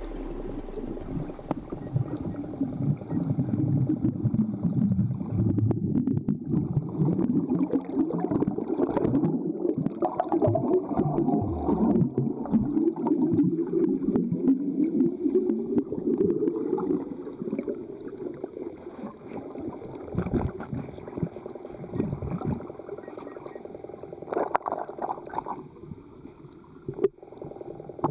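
Muffled sound recorded with the camera underwater while snorkeling: water sloshing and gurgling against the housing, with a low rumble. It grows quieter in the second half, with a few short splashy bursts near the end.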